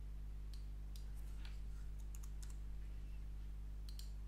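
Computer keyboard keys and a mouse clicking: scattered light taps over a steady low hum, with two quick clicks near the end as a dialog's OK button is pressed.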